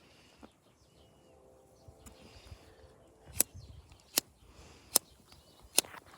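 A pocket multi-tool's blade being tried out, making four sharp knocks a little under a second apart; the blade seems dull. Birds chirp faintly in the background.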